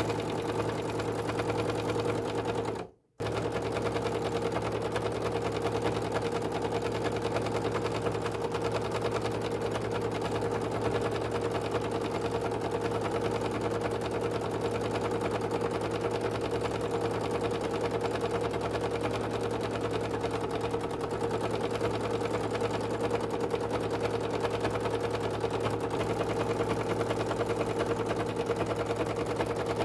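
Domestic sewing machine running steadily, free-motion stitching through quilt layers. The sound drops out for a moment about three seconds in.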